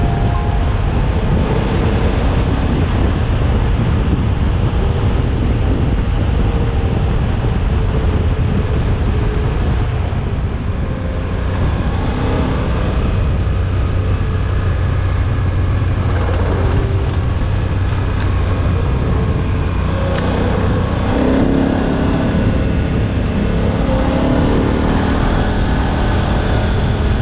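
KTM 1290 Super Adventure's V-twin engine running steadily while riding a gravel road, mixed with a constant haze of wind and tyre noise on the helmet-mounted microphone.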